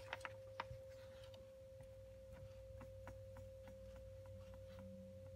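Near silence: room tone with a faint steady tone and low hum, and a few faint clicks in the first second.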